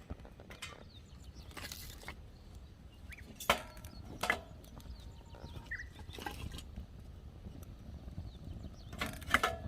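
Firewood being handled: sharp wooden knocks and snaps, two strikes about a second apart near the middle and a quick cluster near the end, over a steady low rumble.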